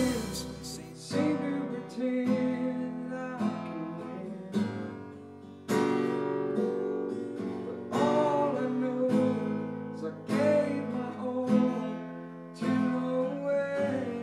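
Steel-string acoustic guitar being strummed. Chords ring out, with a fresh strum about every second or so.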